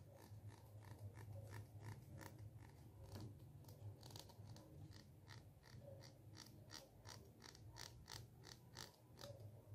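Plastic comb's teeth scratched close to the microphone: a faint, even series of clicks, about three a second at first and about four a second later on.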